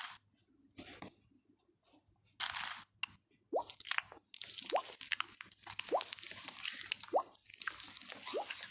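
Slime being squeezed and kneaded by hand: a few short squishes, then from about three and a half seconds a steady run of wet squelches and clicks with short rising squeaks.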